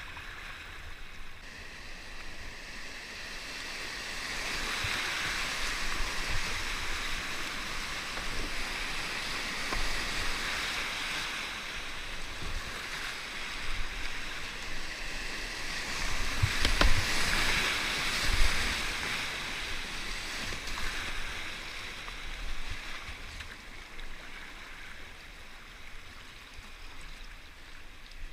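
River water rushing and splashing around a kayak, swelling a few seconds in and again just past the middle, with one sharp knock about halfway through.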